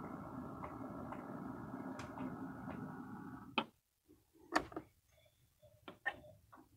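HO scale model diesel locomotive running along the track as it moves freight cars, with light clicks from the wheels; it stops abruptly about three and a half seconds in. A few sharp clicks and taps follow as a hand works at the cars.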